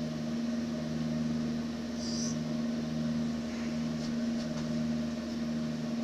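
Steady drone inside a Redbird FMX full-motion flight simulator cabin, a constant hum with a lower pulsing beat about twice a second, and a brief hiss about two seconds in.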